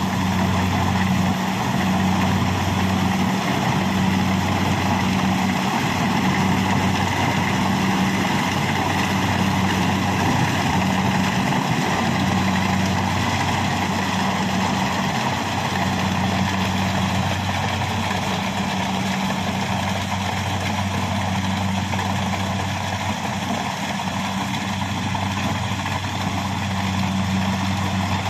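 Kubota combine harvester's diesel engine running steadily while it harvests corn, a constant even drone with a low hum.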